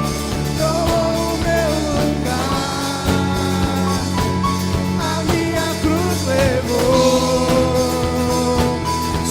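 Live worship band playing, with sustained chords over a steady drum beat and wordless or indistinct singing drifting above.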